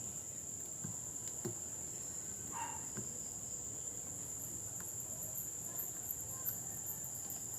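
A steady high-pitched insect chorus, with a few faint clicks.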